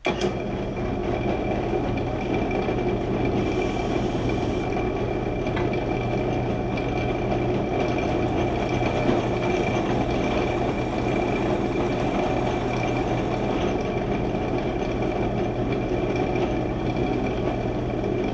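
Floor drill press switched on, its motor starting at once and then running steadily with a constant hum and a thin high whine, while the bit is fed down to cut a hole in thick plate stock.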